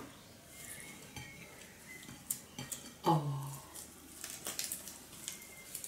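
Quiet handling of food and tableware: scattered light clicks and clinks as cucumber slices and fresh herbs are picked up by hand and wrapped, with a short voiced 'mm' about three seconds in.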